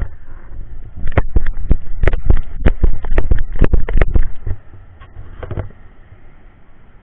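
Surf breaking on a sandy shore under a steady wash of noise, with a rapid, irregular run of loud crackling knocks from about one to four and a half seconds in.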